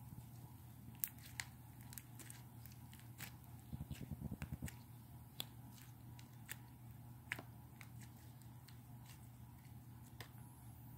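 Slime being worked by hand: faint sticky clicks and pops, with a quick run of soft squelches about four seconds in.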